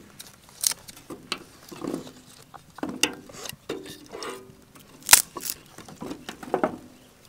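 Dry sticks being laid onto a small wood fire in a metal barrel stove: a series of sharp wooden clacks and knocks, about half a dozen, the loudest about five seconds in.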